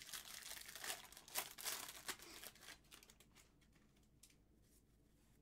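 Crinkling and tearing of a trading-card pack's foil wrapper being handled, dense for about three seconds and then dying away to near silence.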